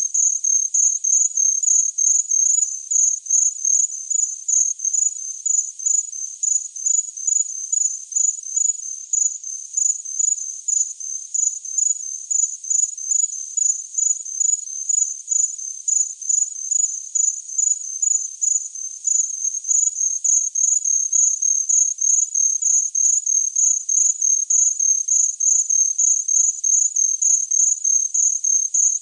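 A cricket chirping steadily: high-pitched chirps repeating evenly, about three a second, with no change in pace.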